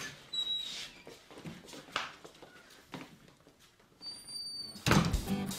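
Quiet room sound with a few faint thuds spaced about a second apart. About five seconds in, background music starts loudly.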